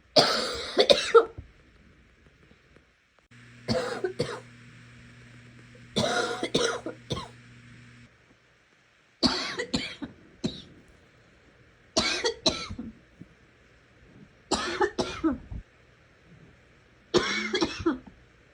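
A sick person coughing in seven short fits, each of two or three coughs, coming every two to three seconds; the first fit is the loudest.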